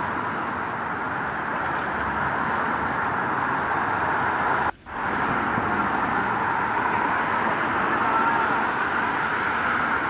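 Steady rain with street traffic, tyres hissing on the wet road. The whole sound drops out for a moment near the middle, then returns.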